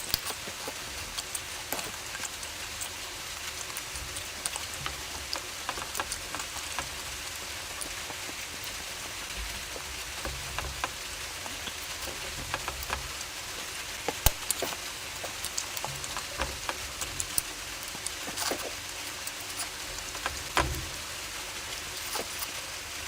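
Close-up wet eating sounds of a person eating curry: many irregular sharp smacks and clicks of chewing and mouth sounds over a steady soft hiss, with a few louder smacks and some dull low thumps.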